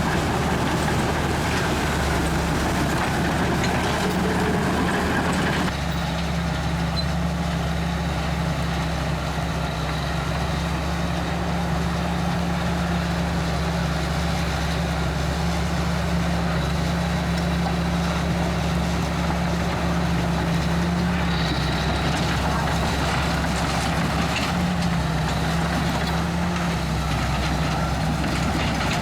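Komatsu D61EX bulldozer's diesel engine running steadily at a constant pitch. The higher-pitched clatter and noise drops away suddenly about six seconds in, while the engine note carries on.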